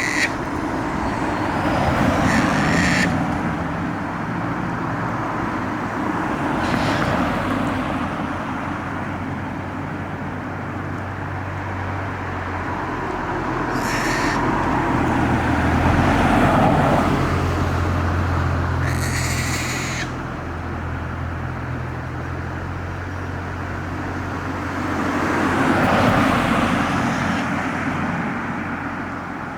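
Traffic passing along a road, swelling and fading several times, over a low engine hum. Japanese macaques give about five short, high-pitched calls through it.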